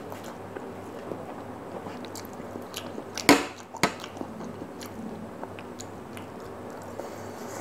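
Close-up chewing of a mouthful of noodles, with many small wet mouth clicks. About three seconds in, a metal fork is set down on a ceramic plate with a loud clatter, followed by a second, smaller clink half a second later.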